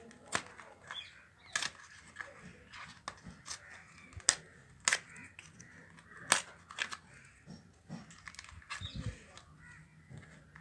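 A cardboard chocolate carton being pried and torn open by hand: a string of sharp clicks and snaps of the paperboard, with faint rustling of handling between them and a dull bump near the end.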